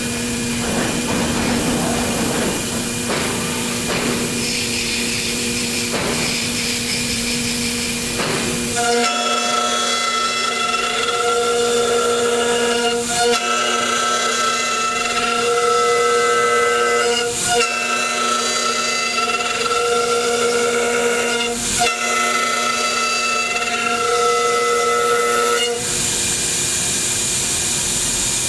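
5-axis CNC router's HITECO spindle whining steadily while milling a wooden sculpture, with the rushing noise of the cut. About nine seconds in, the sound turns to a cleaner stack of whining tones with brief dips, and it returns to the rougher sound near the end.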